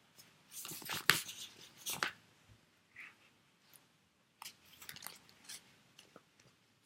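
Craft paper being handled and rustled, with a few light clicks and taps from craft materials on the table. The loudest rustling comes about one to two seconds in.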